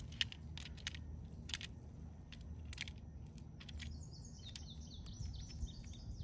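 Scattered small plastic clicks of .68 caliber PepperBall rounds being pressed into a PepperBall TCP magazine by hand. A bird chirps in quick short notes from about four seconds in, over a low outdoor rumble.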